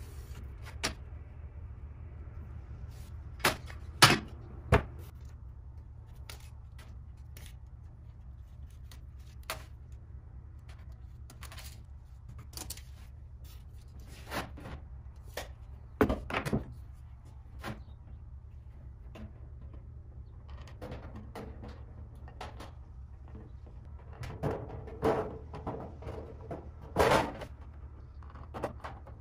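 Scattered sharp knocks and clanks of a spirit level and hand tools being handled on a thin sheet of galvanized steel, over a steady low hum. A denser cluster of metallic clanks comes near the end, as aviation snips work at the sheet's edge.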